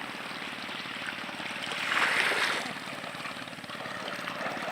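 Water rushing along the shore, with a louder surge of water noise about two seconds in.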